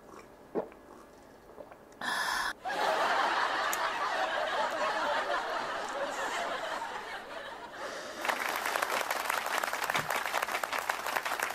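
Canned studio-audience laughter sound effect, followed about eight seconds in by a burst of canned applause.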